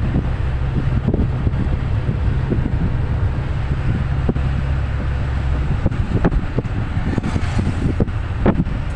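Cabin noise inside a moving minibus: a steady low engine and road rumble with light knocks and rattles. The rumble eases about six seconds in.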